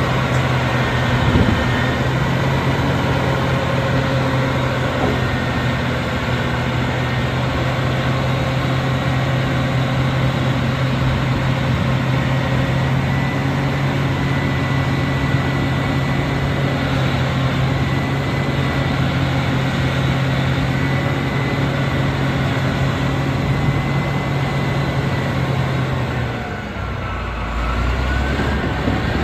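Caterpillar D6R crawler dozer's diesel engine running steadily with a deep, even hum while the blade is worked. Near the end the note dips briefly, then climbs again.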